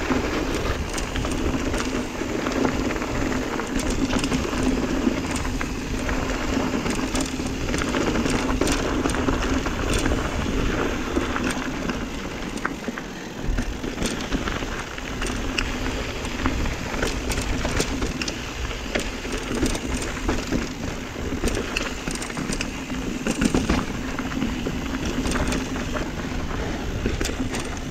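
Mountain bike rolling over a rocky, gravelly trail: knobby tyres crunching and the bike rattling over rocks, with many scattered clicks and a steady rush of noise.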